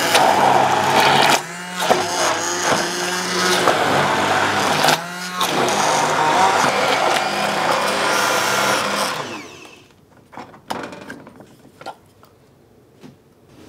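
Electric stick blender running at full speed, its blade churning through a thick purée of cooked mushrooms. The motor cuts out and picks up again twice, then winds down and stops about two-thirds of the way through, leaving only a few light knocks.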